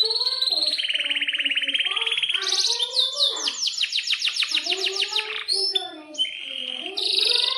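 Domestic canary singing a long, fast song of rolling trills: a buzzy trill about a second in, then a higher, rapid trill of repeated down-sweeping notes, with short high whistled notes between the phrases.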